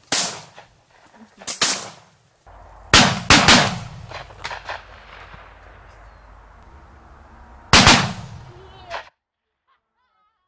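A string of shotgun shots at wood pigeons in flight. Two come close together about three seconds in, and another near eight seconds, each ringing out over the field. The sound cuts off suddenly shortly after.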